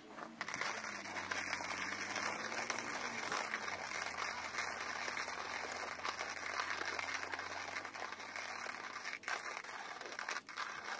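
Hand coffee grinder grinding coffee beans: a continuous crunching, crackling grind that starts just after the beginning and keeps going.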